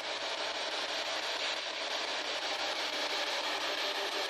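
Handheld spirit box scanning the radio bands, giving a steady hiss of radio static.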